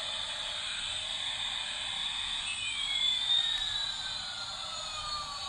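Battery-operated light-up toy airplane playing its electronic jet engine sound through a small speaker: a steady hiss, and about halfway through a whistling tone splits in two, one part rising a little and the other falling slowly.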